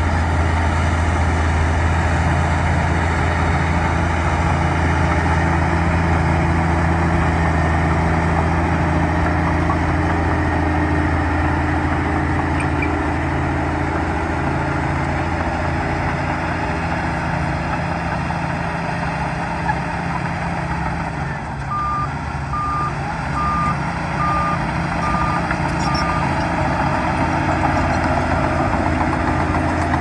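Heavy bulldozer's diesel engine running steadily with a deep drone. Past the middle the engine eases off a little and a reversing alarm beeps six times, a little over once a second.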